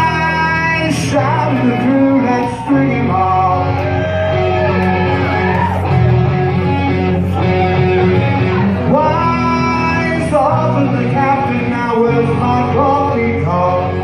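A rock band playing live, with electric guitars, bass and drums, and a man singing lead vocals over them.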